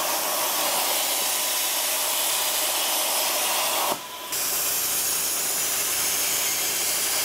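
Arcdroid CNC plasma cutter's torch cutting thin scrap steel: a loud, steady hiss of the arc and compressed air, running at too low a cutting speed on this first pass. The hiss breaks off for a moment about four seconds in, then starts again.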